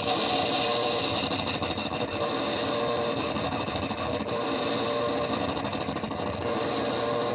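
Distorted electronic noise drone from a chain of effects pedals: a Hexe drone through a filter, overdrive and delay makes a dense, steady, buzzing wall of sound with several held tones. It eases slightly in level after the first second or two.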